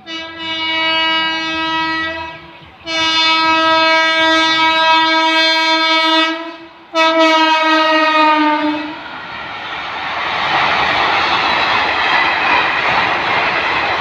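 An electric locomotive's horn sounds three long blasts as an express train runs through at speed, then the steady noise of its coaches running past on the rails.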